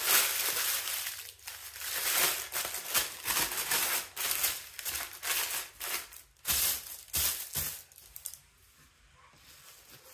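Parchment paper being crumpled into a ball by hand and then smoothed flat on a countertop: a dense, crackling crinkle in rapid irregular bursts that stops about eight seconds in.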